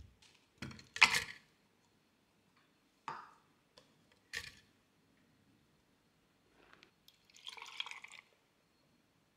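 A plastic food container knocks down onto a table about a second in. Then come two short clunks of watermelon chunks going into a glass blender jar, and near the end about a second of milk pouring into the jar over the fruit.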